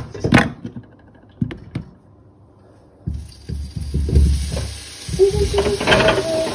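Food sizzling in a hot frying pan, the hiss setting in about three seconds in, after a few knocks and clicks from handling.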